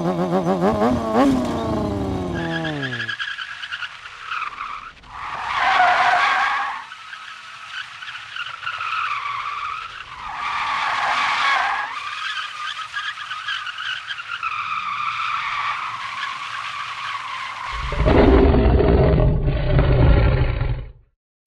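A car engine whose pitch falls away, then a long wavering tyre squeal that swells loudly twice, and a deep rumble near the end that stops abruptly.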